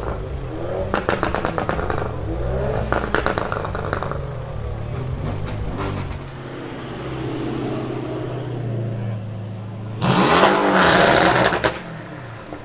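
Car exhaust revving as an older Audi saloon pulls away, with two clusters of crackles. After a cut, a Mercedes-AMG C-Class coupé's engine runs low, then gives one loud burst of throttle lasting nearly two seconds, about ten seconds in.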